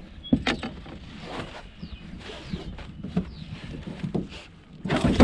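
Irregular knocks, thuds and rustles in a small fishing boat as a freshly landed trout is handled and flops about, with a louder flurry of knocks near the end.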